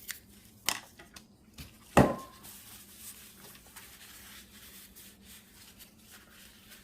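A sharp metal clank with a short ring about two seconds in, after a lighter click, then a few seconds of steady wire-brush scrubbing on a metal part of a small-engine carburetor.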